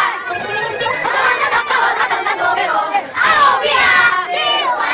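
A group of young boys shouting and chanting together, many voices at once, swelling loudest about three seconds in.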